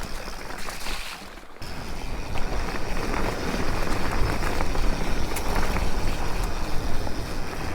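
Mountain bike riding down a rough dirt trail: steady wind noise on the microphone, with tyre noise and the small clicks and rattles of the bike over the bumps. It drops briefly about a second in.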